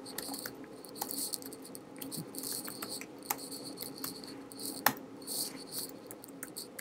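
Soft, irregular keystroke clicks from typing on a computer keyboard, over a faint steady hum.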